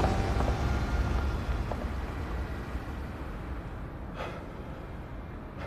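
Car driving away, a low rumble that fades steadily, with a faint click about four seconds in.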